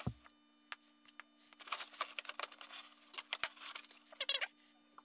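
Faint scratching and rustling as a gloved hand scrapes dirt and bird's-nest debris out of the cavity behind a car's fender liner, in short scattered bursts with a few small clicks, over a faint steady hum.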